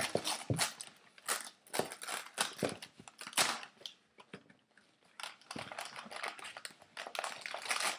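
Paper gift bags and tissue paper rustling and crinkling in short, irregular crackles as they are handled and opened, dropping away for about a second near the middle.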